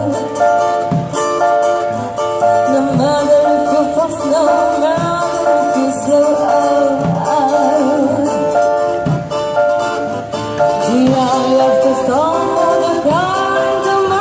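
Live street busking: a singer with vibrato over instrumental backing, with a low beat about once a second.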